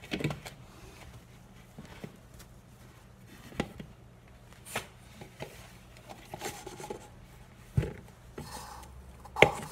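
Scattered light knocks and clicks of a white plate against an aluminium ring cake pan as a baked cake is flipped out of the pan onto the plate, with a dull thump near the end as the upturned pan comes down on the plate.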